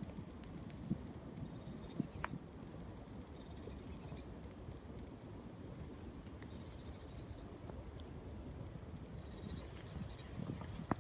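Small birds chirping repeatedly in short, high notes over footsteps crunching steadily in fresh snow.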